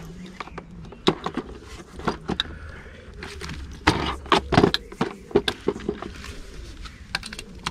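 Irregular clicks and knocks of fittings and equipment being handled, densest about halfway through, over a low steady hum.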